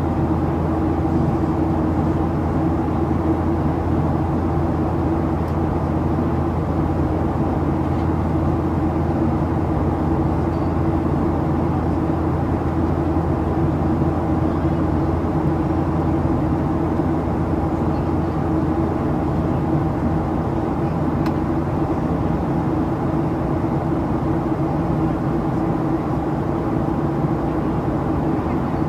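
Boeing 737-800's CFM56-7B engines at climb power heard inside the cabin: a steady rushing drone with the buzzsaw tone of the engine fan, several humming tones held at an even pitch.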